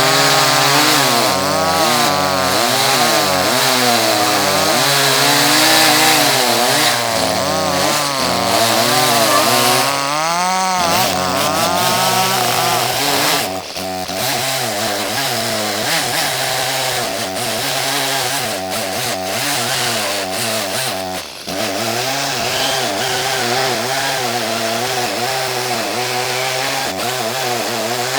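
Small two-stroke chainsaw cutting through wood, its engine pitch wavering as the load changes, rising sharply about ten seconds in and dipping briefly twice later.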